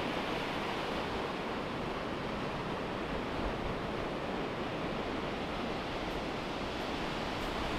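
Steady, even rushing outdoor noise with no rise and fall of breaking waves and no distinct events.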